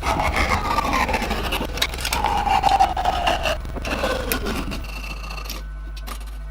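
A hand tool scraping across wood in a few long strokes, each with a squeal that falls in pitch; the scraping stops about five seconds in, leaving a low hum.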